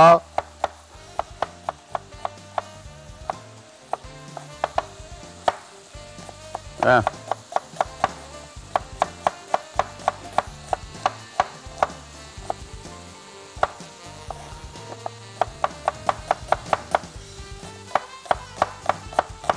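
Knife slicing a red onion on a plastic cutting board: runs of sharp taps, about three a second, with short pauses between runs. A short voice-like sound comes about seven seconds in.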